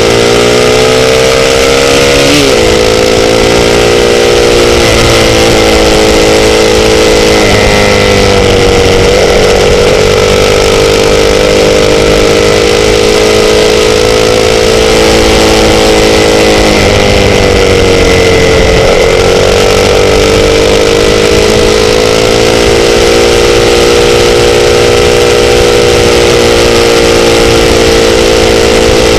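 Sport-bike engine running steadily at speed. Its pitch dips and climbs back several times, most deeply a little past halfway, over a continuous rushing noise.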